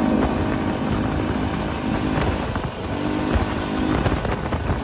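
Small single-cylinder four-stroke engine (a Predator 212) of a vintage Bonham Tote Goat minibike running under way. The engine note eases off around the middle and picks up again about three seconds in.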